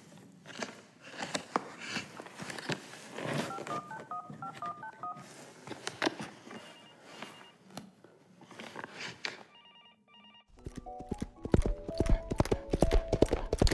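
Scattered soft clicks and knocks with a few short electronic beeps. About ten and a half seconds in, music with a quick, even beat starts.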